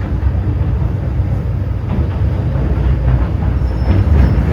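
Cabin running noise of an MTR M-Train electric multiple unit under way: a steady low rumble of wheels on rails and running gear, with a few faint knocks in the middle and a thin high whine near the end.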